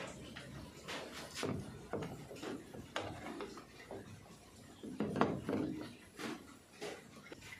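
Plastic clicks, knocks and rubbing from handling a washing machine's water inlet valve, its blue solenoid coil being pushed onto the white plastic valve body. Irregular taps, the loudest cluster about five seconds in.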